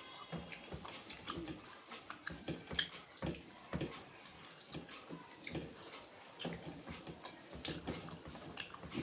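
Close-up eating sounds: chewing and lip smacks with many irregular short clicks, the loudest a few about three seconds in.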